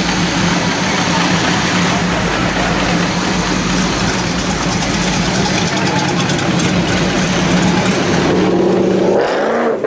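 Engine of a 1930 hot rod pickup truck idling steadily. Near the end a short rising whine comes in.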